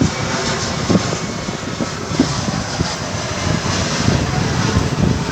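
Engine noise from a landing Embraer aircraft: a steady rumble.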